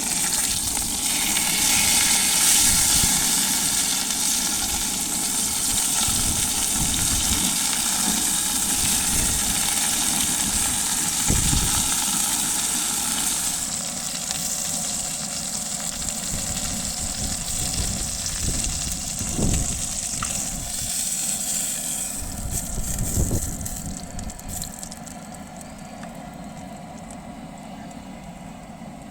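Steady sizzling hiss of food cooking in a hot pan, with a few low thumps. The sizzle dies down about twenty-four seconds in.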